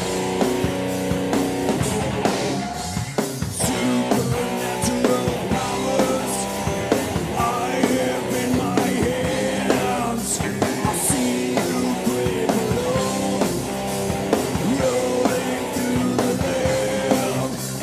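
Heavy rock music played by a band, with electric guitars and a drum kit.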